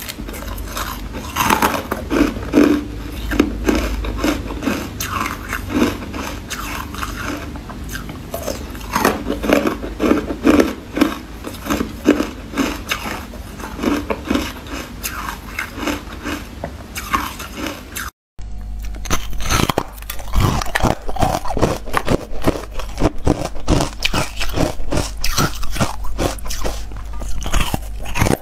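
Close-miked crunching of carbonated ice: teeth biting through frosty ice cubes and chewing the pieces, with many sharp cracks and crackles. The sound breaks off for a moment about two-thirds of the way through, then the crunching resumes.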